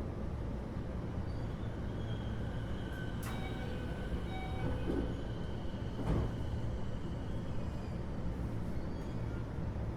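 Running noise inside a Keio 8000 series electric train car, heard above its GTO-VVVF main controller: a steady low rumble from the wheels and running gear, with a few faint steady high tones. Two sharp clicks come through, about three and six seconds in.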